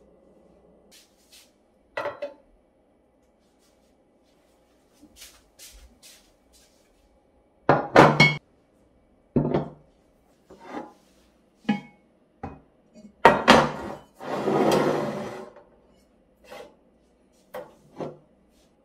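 Pots, lids and a white steel IKEA VARIERA shelf insert being set down and moved on a countertop: a dozen or so separate clunks and clinks, the loudest about 8 and 13 seconds in, and a scraping slide of about a second as a pot is pushed across the counter.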